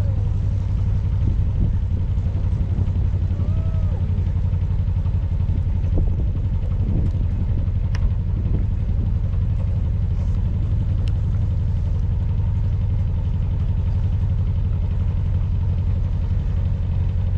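Narrowboat's diesel engine running steadily at cruising speed: a low drone with a fast, regular beat.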